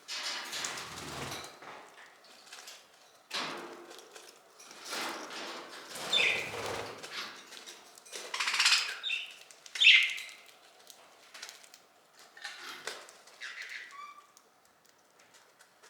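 Pet budgerigars fluttering and rustling in a series of short noisy bursts, with a few brief high chirps.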